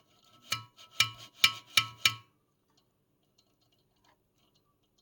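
About five sharp metallic clinks in quick succession in the first half, each ringing with the same tones, as a metal part of the frame tracer's mechanism is knocked or tapped while being handled; then only faint small ticks.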